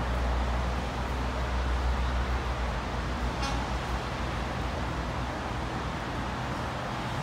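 Steady low rumble and hiss of a distant approaching CSX freight train's diesel locomotives mixed with road traffic, the rumble easing a little partway through. A brief, faint horn toot comes about three and a half seconds in.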